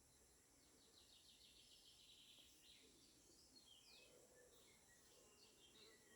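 Faint birdsong: a quick trill of rapidly repeated high notes about half a second in, followed by scattered short chirps.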